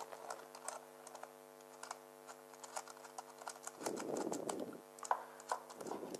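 Faint, scattered little clicks and ticks of a narrow screwdriver unscrewing the brass main jet from a small generator carburettor, with soft handling rustle about four seconds in and again near the end. A steady low hum sits underneath.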